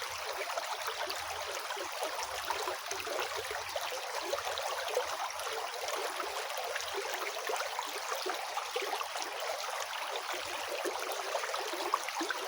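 River water flowing steadily over rocks, a continuous splashing rush with fine gurgles.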